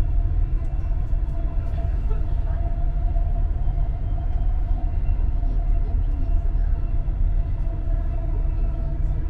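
Dubai Metro Red Line train running at speed on elevated track, heard from inside the cabin: a steady low rumble with a faint steady whine over it.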